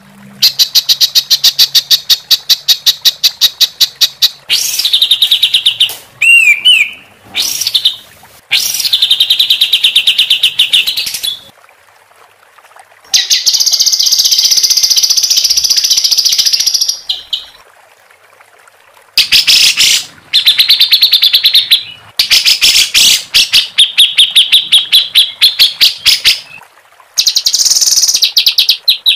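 Songbird masteran song: loud phrases of fast, rapidly repeated harsh notes and rolling trills, each one to four seconds long, with short pauses between them and a single sliding call about six seconds in.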